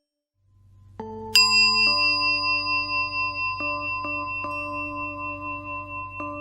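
Bell-like chime music: struck notes that ring on and overlap, over a low steady drone, with one bright high bell note sounding out about a second in and several softer strikes after it.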